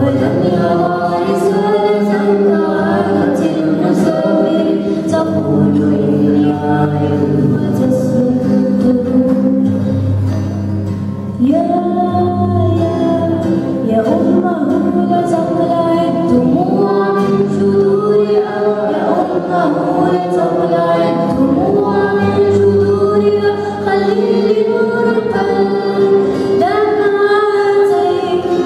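A girl singing a melody through a microphone, accompanied on acoustic guitar.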